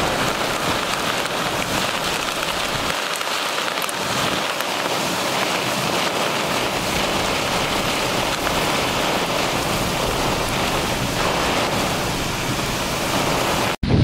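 Heavy rain pouring down in a severe thunderstorm, a dense, steady hiss of downpour. It cuts off abruptly just before the end.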